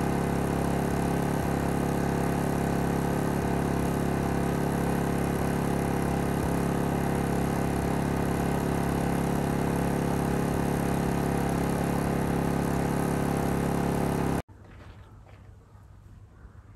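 EENOUR DK3000iSDF inverter generator running steadily on LP gas, an even engine hum. It cuts off abruptly near the end, leaving a quiet outdoor background.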